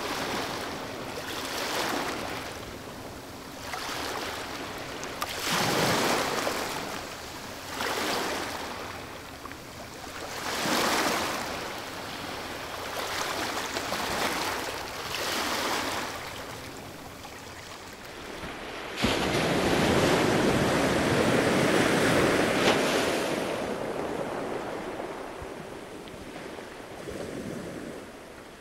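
Waves washing onto a shore, a swell of surf every two to three seconds. About two-thirds of the way in, a louder, longer rush of surf starts suddenly and slowly fades.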